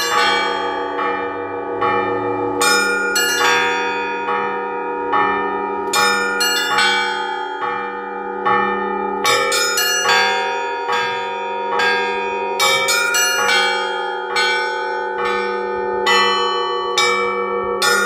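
Russian Orthodox church bells rung by hand, the clappers pulled on ropes, in a continuous festive peal. Small bells strike in a quick, even rhythm over the long-ringing tones of the larger bells.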